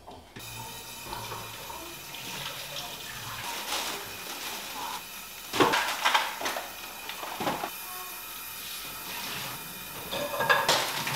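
Kitchen handling sounds: containers and utensils knocking on a countertop, a few sharp knocks about halfway through and again near the end, over a steady hiss.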